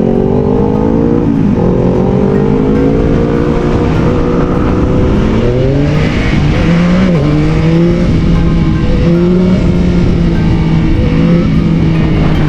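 Yamaha XSR900's inline three-cylinder engine under way on the road, accelerating. Its pitch climbs, drops sharply about a second and a half in as it shifts up, then rises slowly and settles into a steady drone.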